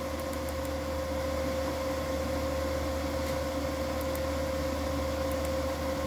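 Steady electrical hum and fan noise from a running MPP Solar inverter: a constant mid-pitched tone over a low hum and an even hiss.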